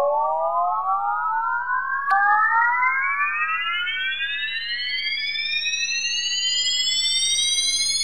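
Synthesized sci-fi spaceship take-off effect: several layered tones climbing steadily in pitch together, like a powering-up engine whine. A click about two seconds in brings in another rising tone.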